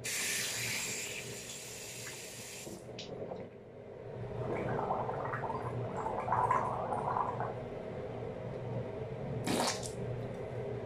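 A bathroom tap runs for about three seconds, then a person gargles water with the head tilted back for several seconds. A short sharp splash-like burst comes near the end.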